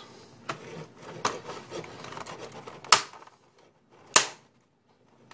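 Mechanical keyboard's latched top cover being pressed onto the base, its latches clicking into place: a few light clicks, then two sharp loud snaps about a second apart, the first near the middle.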